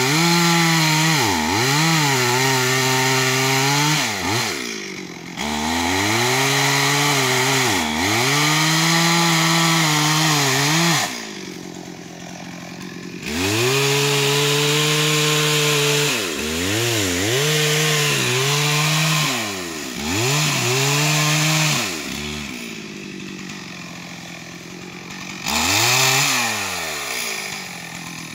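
Stihl MS440 two-stroke chainsaw revved hard in long bursts, its pitch dropping and climbing back quickly each time the throttle is let off and squeezed again. It falls back to idle twice, about 11 seconds in and again about 22 seconds in.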